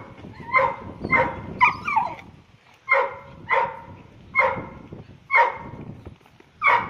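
Husky-type dog giving a string of short, high yelping whines, about eight in quick succession, some sliding down in pitch: an excited greeting of its owner.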